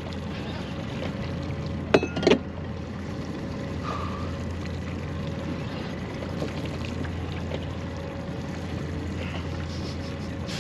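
Small boat's outboard motor running steadily at idle, with two sharp knocks close together about two seconds in.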